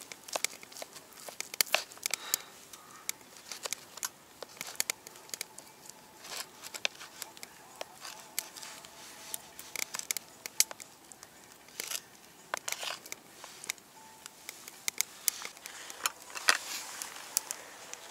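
Knife cutting through a crisp, pan-fried croque-monsieur toast on a plate: an irregular run of crackly crunches and scrapes.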